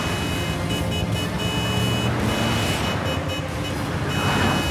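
Cars driving in traffic: a steady engine and road rumble, with a thin high steady tone that cuts out and comes back several times.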